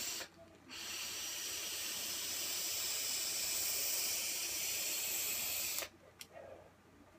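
A long drag on a vape through a sub-ohm tank: a steady hiss of air drawn through the tank for about five seconds, starting about a second in and stopping abruptly near six seconds, after a brief hiss right at the start.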